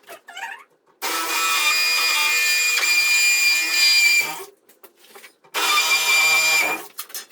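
A small motor runs at a steady speed in two bursts: one of about three seconds, then, after a short pause, another of about a second and a half.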